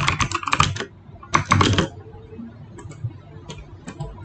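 Typing on a computer keyboard: a fast run of keystrokes in the first second, a second short flurry about a second and a half in, then a few scattered single keystrokes.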